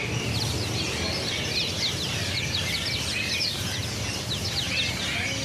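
Many small caged songbirds chirping at once, a dense stream of quick, overlapping high chirps, over a steady low background rumble.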